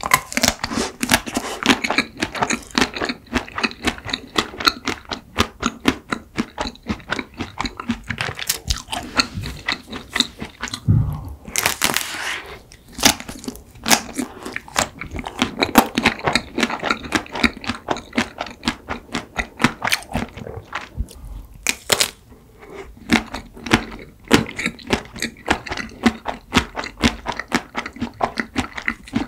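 Close-miked biting and chewing of a chocolate-coated ice cream bar on a stick: the hard chocolate coating crunches and crackles in rapid, irregular clicks.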